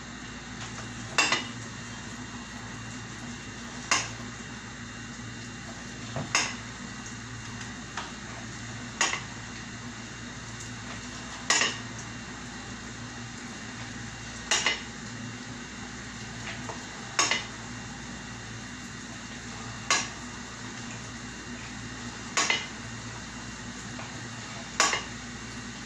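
Metal utensil clinking sharply against a cooking pot every two to three seconds, a few strikes coming as quick doubles, over a steady low hum.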